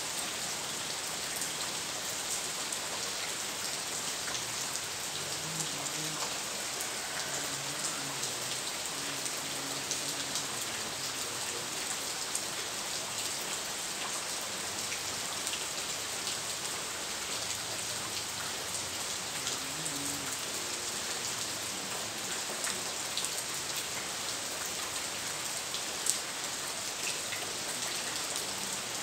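Steady rain falling on hard surfaces: a continuous hiss with scattered drop ticks. One sharp click stands out near the end.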